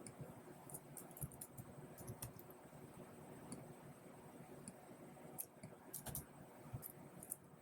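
Faint, irregular clicks and taps of typing on a computer keyboard, a few keystrokes at a time with short pauses between them.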